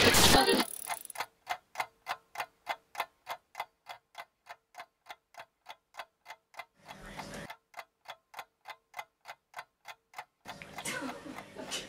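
Clock ticking steadily, about three ticks a second. There is a brief rush of noise about seven seconds in, and noise swells again near the end.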